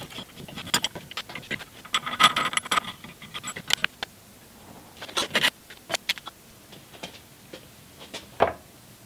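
Metallic clinks and scraping from a half-inch pipe tap and adjustable wrench working in a metal flange clamped in a drill-press vise, busiest in the first three seconds. Then come a few scattered clicks as the metal parts are handled, and a single knock near the end.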